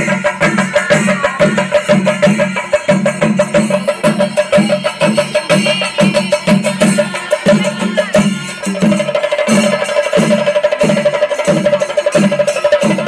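Chenda drums of a Kerala temple percussion ensemble (chenda melam) beaten with sticks in a fast, dense rhythm, with a steady ringing tone over the drumming that grows stronger about two-thirds of the way through.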